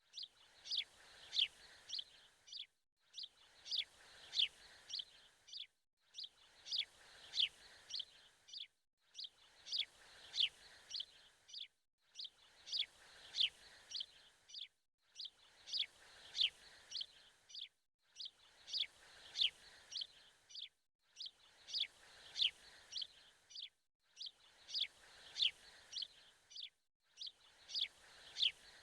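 Bird chirps in quick falling sweeps over a faint hiss, a short birdsong clip repeated as a loop about every three seconds with a brief silent gap between repeats.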